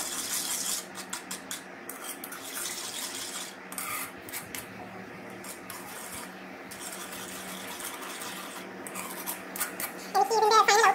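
Metal ladle scraping and stirring round a metal kadai (wok), irregular rubbing strokes against the pan. The pan holds sugar and water heating and dissolving into syrup.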